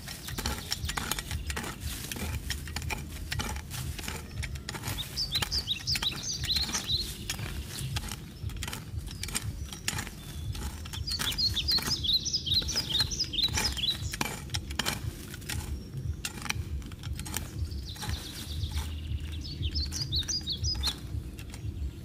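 A songbird singing three bursts of quick high chirping notes, over frequent light clicks and knocks.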